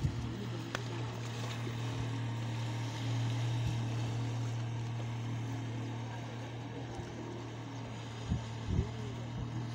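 Motorboat outboard engine running steadily with a low, even tone, a little louder from about three seconds in. Two brief knocks of wind or handling on the microphone near the end.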